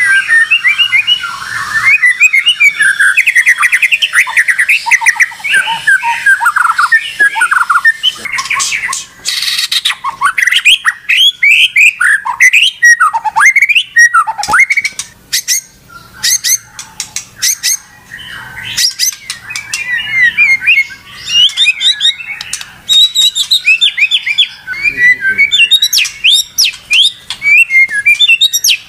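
White-rumped shama (murai batu) singing loudly and without pause, a rapid run of varied whistled phrases and trills mixed with sharp clicking notes. This is agitated, provoked song of a bird in full voice.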